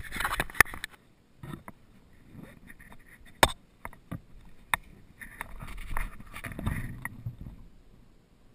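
Handling noise from a GoPro HD Hero2 in its housing on a forearm strap mount: the strap and housing rub against the arm and clothing, with several sharp knocks and clicks. The loudest knock comes right at the start.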